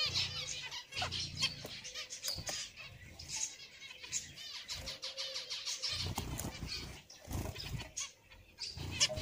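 Zebra finches calling: many short, quick chirps overlapping, with a low rumble underneath at times.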